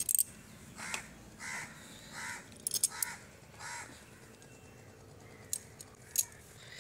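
A crow cawing five times in a row over the first four seconds. Sharp metallic clicks of a screwdriver on a scooter carburetor come at the start, midway and near the end.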